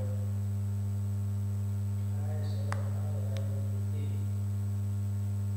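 Steady low electrical hum, the mains hum of the recording setup, with two faint clicks a little past the middle.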